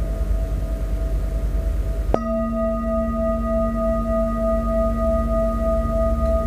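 Metal singing bowl ringing with a steady, wavering tone. About two seconds in, a deeper tone comes in suddenly with a click and rings on alongside it.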